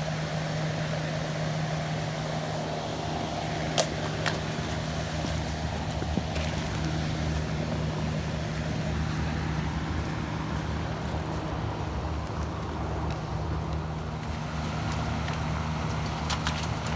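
Steady outdoor background noise: a low hum under an even rushing sound, with a sharp click about four seconds in and a few more near the end.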